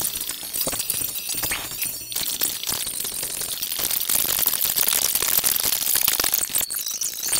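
Dense, high-pitched crackling and clinking noise made of many rapid clicks, growing louder about four seconds in.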